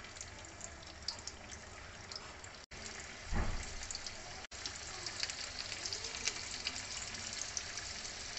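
Hot oil sizzling and crackling as bread-and-mixture pakoda patties deep-fry in a pan, louder after about three seconds as more patties go in, with one dull thump about three and a half seconds in.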